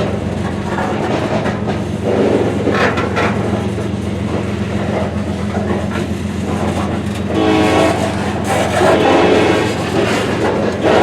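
Freight train passing with the steady drone of KCSM SD70ACe diesel-electric locomotives and wheels clacking over the rail joints. A locomotive horn sounds from about seven seconds in.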